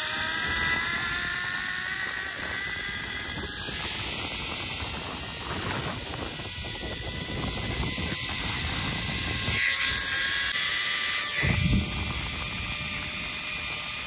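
Zip-line trolley pulleys running along the steel cable: a whirring whine that rises in pitch over the first few seconds as the rider gathers speed, then holds steady, over rushing wind noise. Two louder rushes of noise come in the last third.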